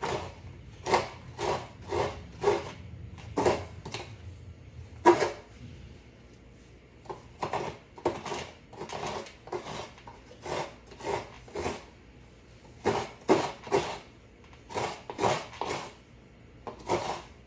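Half coconut being scraped against the serrated blade of a traditional hand coconut grater (kudkuran), grating out the coconut meat. It makes a run of short rasping strokes, about two a second, in bursts with brief pauses.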